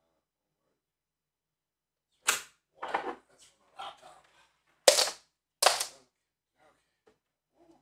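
Sharp plastic clacks and knocks of a bundle of power-supply cables and their connectors being picked up and handled: one loud clack, a few softer knocks, then two loud clacks close together.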